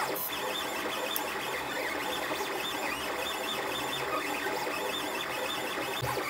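A LulzBot 3D printer printing: its stepper motors whir in short, quickly changing pitches as the print head darts around the bed, over a steady hum.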